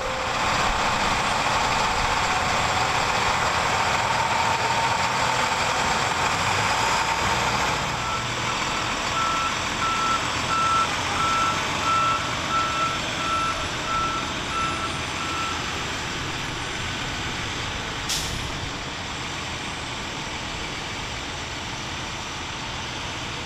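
A truck's engine running, with its reversing alarm beeping at a steady pace for several seconds in the middle; a single sharp click comes near the end.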